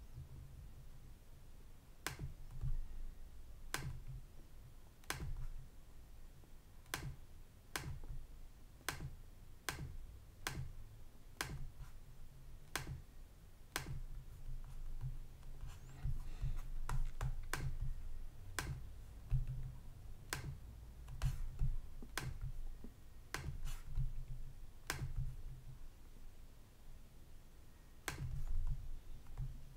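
Sharp single clicks of a computer mouse, roughly one a second and irregularly spaced, as on-screen checkboxes are ticked. A low steady hum runs underneath, and the clicks pause for a few seconds near the end.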